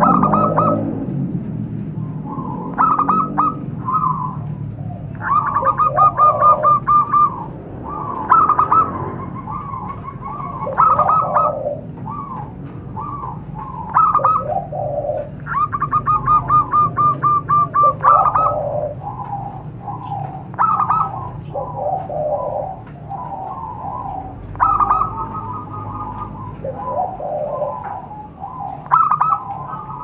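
Zebra doves (perkutut) cooing: repeated phrases of quick staccato notes, with calls at a higher and a lower pitch overlapping, over a low steady hum.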